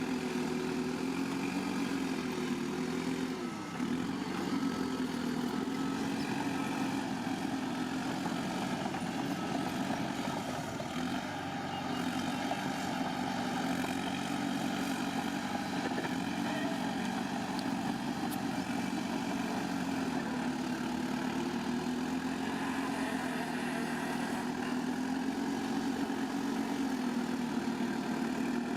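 Bulldozer's diesel engine running steadily, its pitch dipping briefly about three and a half seconds in and wavering up and down slightly after that.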